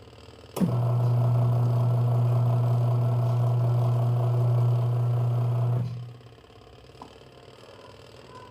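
Washing machine motor turning the drum, starting with a click and running with a steady hum for about five seconds, then winding down to a stop and pausing, the stop-and-start pattern of a wash cycle's tumbling.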